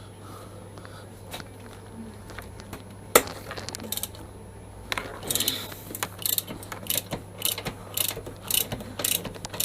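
Socket wrench ratchet clicking while the rear axle nut of a motorcycle is undone: one sharp metallic click about three seconds in, then a run of short clicks, roughly two to three a second, through the second half.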